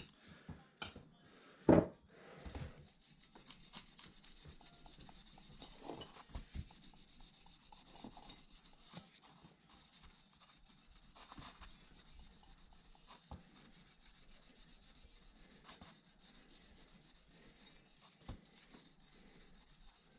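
Faint rubbing and scraping with scattered light knocks and clicks, the loudest a sharp knock just under two seconds in; no engine is running.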